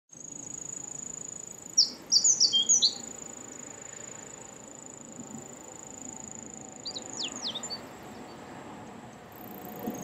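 Ochre-rumped bunting singing: a phrase of quick, falling high notes about two seconds in, and a shorter phrase about seven seconds in, over a steady high-pitched insect trill.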